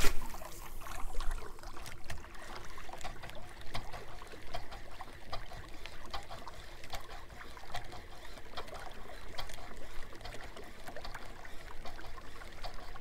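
Small water lapping and trickling against a canoe's hull, with scattered small ticks and clicks and a low rumble throughout. A short sharp knock at the very start is the loudest sound.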